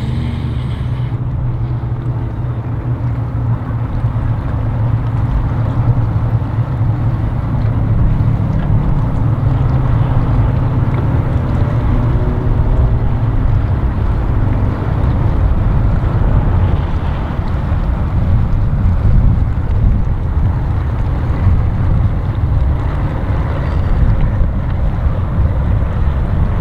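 Mercury outboard motor idling and pushing a center-console bay boat along at low speed, a steady low hum that sounds good.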